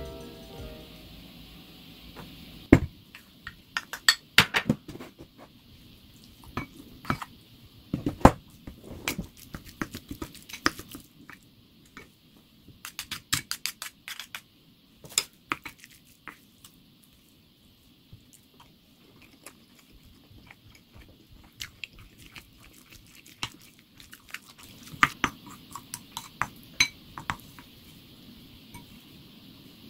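Wooden spoon scooping and knocking against a ceramic rice bowl, making irregular clusters of sharp clicks, with chewing in between.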